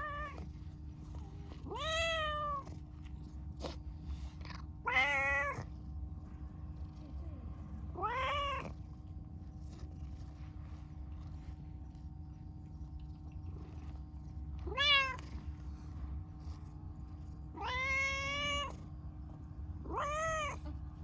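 Dilute (pastel) calico cat meowing repeatedly: about seven meows a few seconds apart, each rising and then falling in pitch.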